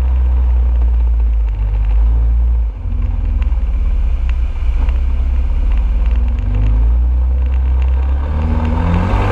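Can-Am Outlander ATV running at speed along a gravel trail, with a heavy low rumble and scattered ticks of gravel under the tyres. The engine note rises near the end as the quad heads into a puddle.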